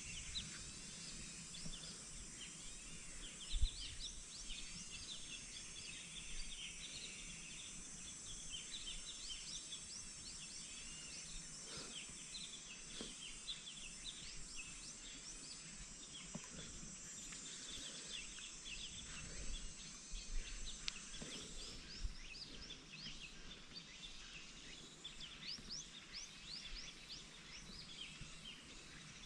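Many small birds chirping continuously over a steady high-pitched hiss, with a few faint knocks, the clearest about three and a half seconds in.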